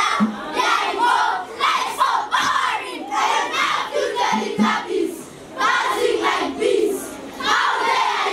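A group of children chanting a poem together in loud, shouted unison, in short rhythmic phrases with a brief pause about five seconds in.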